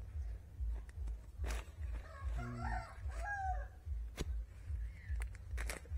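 A rooster crowing once, about a second long, a couple of seconds in. Under it are a low rumble and a few sharp clicks.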